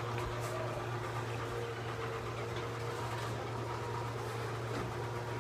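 Old Montgomery Ward Door Command garage door opener running as it raises the door, a steady motor hum.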